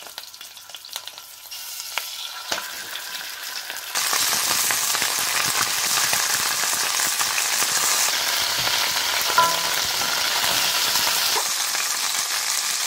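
Chicken drumsticks frying in hot oil in a stainless steel pot, sizzling, with a spatula scraping and turning them. The sizzle is faint with a few knocks at first and becomes suddenly louder about four seconds in.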